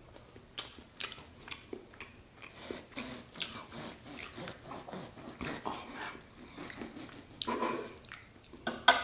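Serrated bread knife sawing through a soft homemade bun, a string of short rasping strokes, mixed with chewing close to the microphone. A louder sharp knock comes right at the end.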